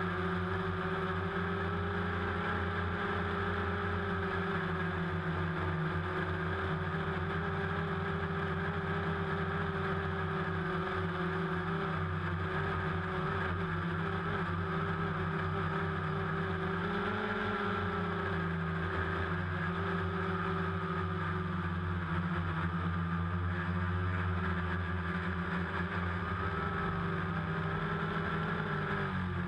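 DJI Phantom quadcopter's four electric motors and propellers whining steadily, heard on board. The pitch shifts up and back briefly a little over halfway through, and dips again near the end, as the motor speeds change.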